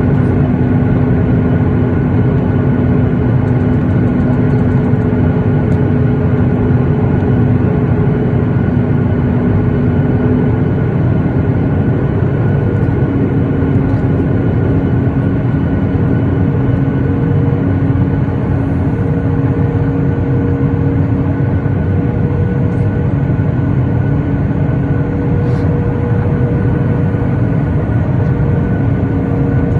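Steady cabin noise inside a Boeing 737-8 in flight: the rush of engines and airflow with a constant droning hum, whose pitch steps up slightly about eleven seconds in as the engine power changes.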